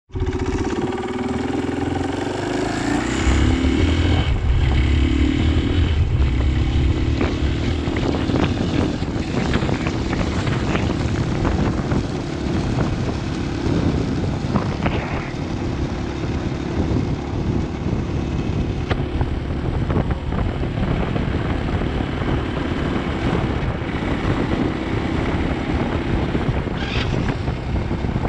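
Motorcycle engine running while riding along a dirt road. It rises in pitch over the first few seconds as the bike picks up speed, then runs steadily.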